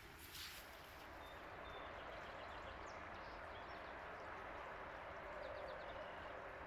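River water flowing in a steady rush, with small birds chirping faintly above it, including a quick run of chirps about five seconds in. A brief hiss comes about half a second in.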